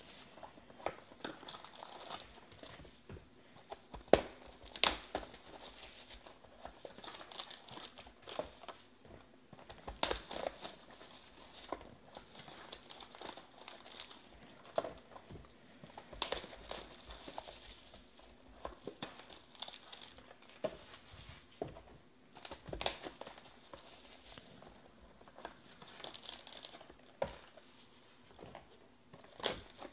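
Cellophane shrink wrap crinkling and tearing as it is stripped off small cardboard trading-card boxes, with irregular sharp crackles and clicks as the boxes are opened and the foil packs handled.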